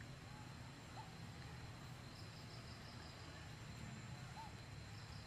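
Faint outdoor ambience: a steady low hum with insects' thin high drone, a short high rapid trill twice, and a couple of faint short chirps.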